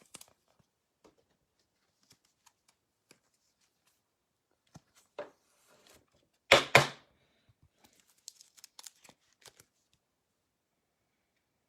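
A baseball trading-card pack torn open, two quick loud rips about six and a half seconds in, with faint rustling and clicking of cards being handled around them.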